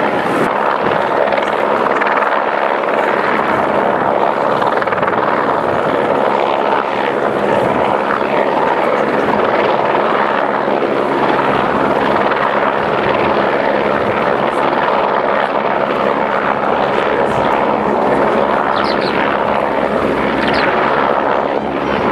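Eurocopter AS550 Fennec helicopter flying overhead: a loud, steady rush of turbine and rotor noise that holds at an even level throughout.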